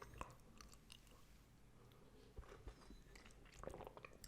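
Near silence: low room tone with faint, scattered small clicks of the mouth, a few slightly stronger near the end.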